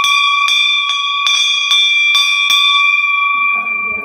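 Temple bell rung by hand, struck about seven times in quick succession, roughly two to three strikes a second, then left ringing on as the strikes stop about two and a half seconds in.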